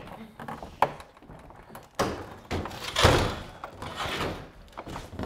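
Plastic interior trim panel on a Tesla Model S P90D liftgate being pulled off by hand: a sharp click about a second in, then two longer noisy bursts of plastic rattling and scraping around two and three seconds in.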